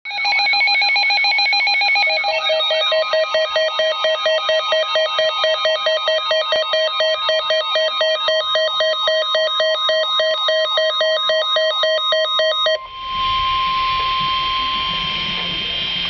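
Emergency alert tones from a weather alert radio. A fast electronic warble for about two seconds becomes a two-tone alarm pulsing about four times a second, which cuts off suddenly about 13 seconds in. After that comes a steady single warning tone of about 1 kHz over radio static, the NOAA Weather Radio alarm that heralds a warning broadcast.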